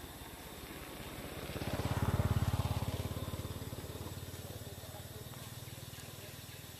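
A passing motor vehicle's engine, swelling to its loudest about two seconds in and then fading away.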